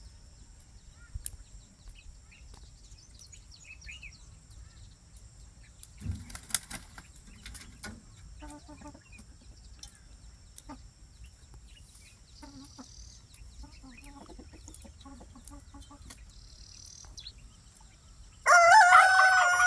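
Scattered soft clucks and chirps from free-range poultry. Near the end a rooster crows loudly, one long call that runs on past the end.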